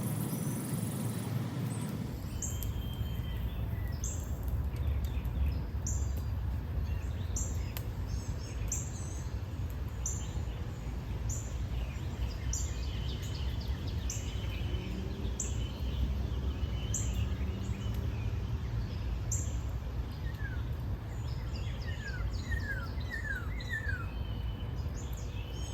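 Wild birds calling: a short, high, falling chirp repeated about once a second, then a quick run of falling whistled notes near the end, over a steady low rumble.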